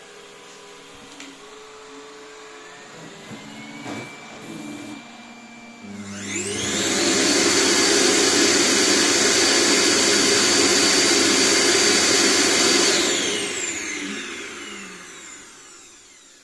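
Roomba j7+ Clean Base auto-empty station: after some quieter robot whirring and clicks, its suction motor spins up about six seconds in with a rising whine. It runs loudly and steadily for about seven seconds, emptying the robot's dust bin, then winds down with a falling whine.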